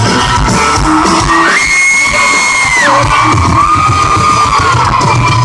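Live country-rock band playing loudly over a concert PA, with long high whoops and yells from the crowd.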